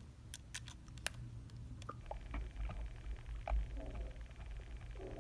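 Small sharp clicks and taps of a baitcasting reel's metal parts being handled as the stock spool is put back in. After about two seconds come handling rumble and a fine, rapid ticking.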